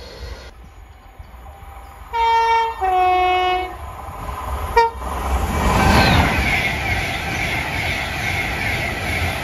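Avanti West Coast electric train sounding its two-tone horn, a higher note then a lower one, followed by a short high toot. The train then passes at speed with a loud rush of wheels and air.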